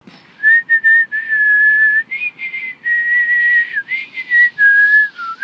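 A person whistling a tune: a string of held notes, some long, with small slides between them.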